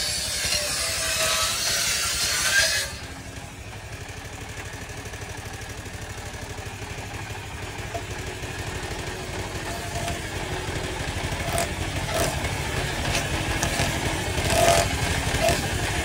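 Circular saw bench cutting through wood with a loud hiss for about the first three seconds; then the cut ends and the machine's engine keeps running unloaded with a steady low pulse. A few sharp knocks come near the end.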